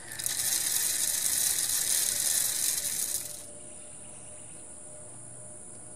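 Wingscapes AutoFeeder's timed seed thrower running for about three seconds, a hissing rattle of seed being thrown out into the feeder's tray, then it cuts off suddenly.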